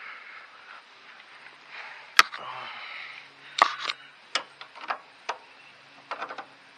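Irregular sharp metal clicks and knocks from hand tools and parts being worked on a Case Ingersoll tractor's travel control linkage, where a rod end and jam nut are being threaded on. The loudest click comes about two seconds in, and a quick run of smaller clicks comes near the end.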